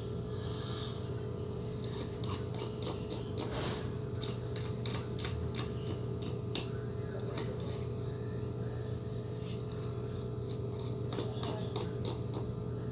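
Chilled body-wash slime being handled and scooped out of a plastic container: irregular small clicks and squishy crackles come and go over a steady background hum.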